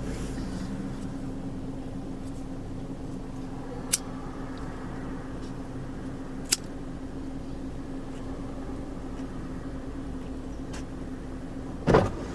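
Car engine running steadily, heard from inside the cabin as a low hum. Two sharp clicks come about four and six and a half seconds in, and a brief louder knock comes near the end.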